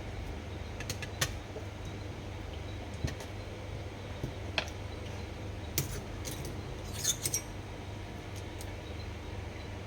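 Small metal parts of a Daiwa Steez SV TW baitcasting reel clicking and clinking as it is taken apart by hand: scattered sharp ticks, with a quick cluster about seven seconds in, over a low steady hum.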